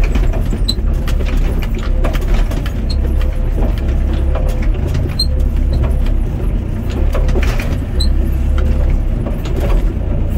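Doosan DX55 mini excavator's diesel engine running, heard from the cab, rising and easing with the hydraulic load as the bucket pushes soil into a trench, with scattered light ticks of rain on the cab glass.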